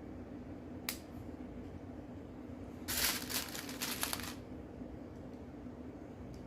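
Rummaging through loose plastic Lego pieces while searching for a part: a single sharp click about a second in, then about a second and a half of rattling, rustling clicks.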